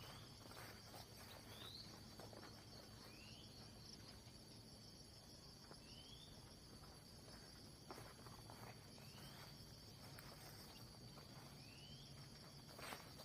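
Faint outdoor insect chorus, a steady high whine, with a short rising chirp about every two seconds and a few soft clicks near the end.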